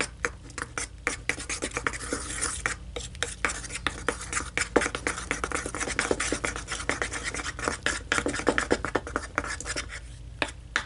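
A stick stirring glue and shaving cream in a bowl: quick, repeated scraping and clicking against the bowl, stopping shortly before the end.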